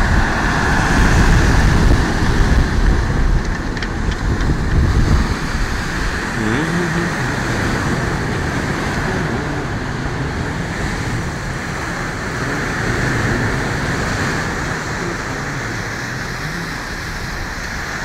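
Rough Adriatic surf breaking and washing over the rocks and stones at the shore, a steady rushing noise. Wind buffets the microphone, heaviest in the first few seconds.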